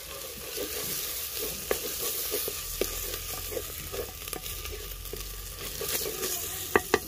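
Ginger paste, onion and garlic sizzling as they fry in ghee in a clay pot, stirred with a wooden spoon that scrapes and taps the pot; the sizzle grows louder at the start. Several sharp knocks of the spoon against the pot near the end.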